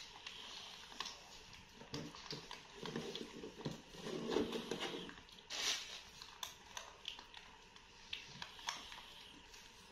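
Faint sounds of jackfruit being pulled apart and eaten: scattered soft clicks and a short rustle about five and a half seconds in, with a faint low murmur of a voice around the middle.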